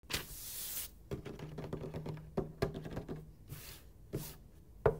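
Paper rustling and sliding, broken by scattered light clicks and taps, with one sharp tap near the end.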